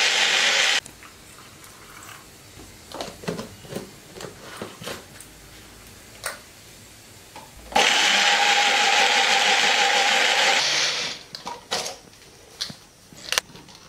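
Bullet-style mixer grinder motor running, grinding chutney into a paste: a run cuts off about a second in, then the plastic jar clicks and knocks as it is shaken by hand. The motor runs again for about three seconds from about eight seconds in, winds down, and a few clicks follow as the jar is lifted off the base.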